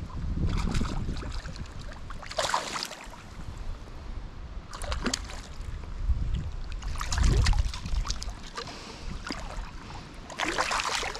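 Water splashing in several irregular bursts as a hooked smallmouth bass thrashes at the surface while being brought in on a fly line, over a low rumble on the microphone.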